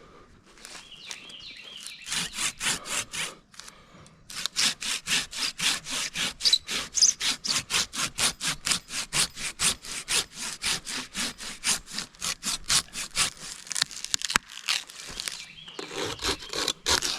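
Hand saw cutting through wood in quick, even back-and-forth strokes, about four a second, with a short pause early on and a brief let-up near the end.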